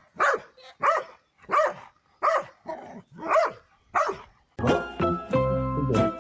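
A dog barking repeatedly, about one bark every two-thirds of a second, then background music starts about four and a half seconds in.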